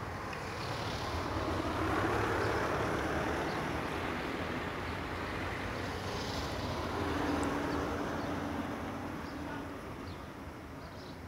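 Street traffic passing outdoors: a steady rumble that swells as a vehicle goes by about two seconds in, and again with a second vehicle, carrying a low engine note, about seven seconds in.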